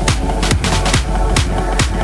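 Electronic dance music with a steady four-on-the-floor kick drum, about two and a half beats a second, over sustained synth chords.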